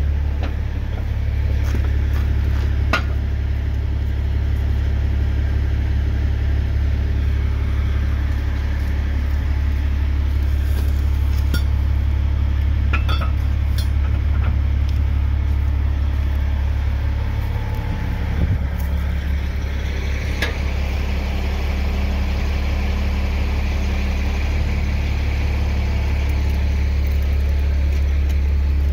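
Crane truck's engine idling steadily, with a few sharp metallic clinks from work on a truck wheel during a tire change.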